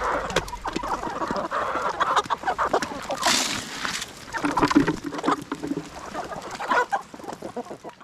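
Chickens clucking among many scattered small knocks and rustles, with a brief hissing rush of noise about three seconds in.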